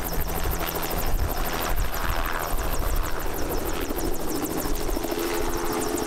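Agricultural spray helicopter with a two-bladed main rotor lifting off and climbing away, its rotor beating steadily over the engine's running.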